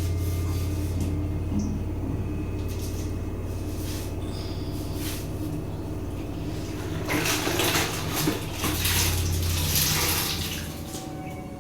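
Water rushing for about three seconds, starting about seven seconds in, over a steady low hum.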